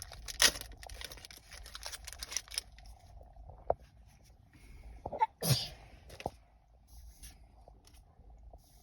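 A trading card booster pack and its cards being handled: light crinkling and small clicks, busiest in the first couple of seconds. A short, sharp burst stands out about five and a half seconds in.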